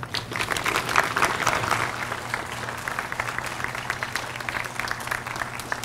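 Audience applauding, densest in the first couple of seconds, then thinning out to scattered individual claps.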